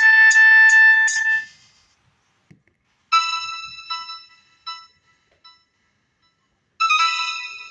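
Preset tones from an Explay Element mobile phone, played through its small speaker. One electronic melody ends about a second and a half in. After a pause, a short chime-like alert tone of a few bright, fading notes plays, and it starts over near the end.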